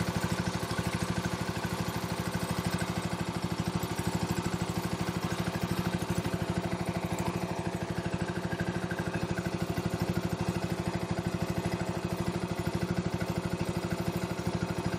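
A small boat's engine running steadily at an even speed, a fast regular chugging.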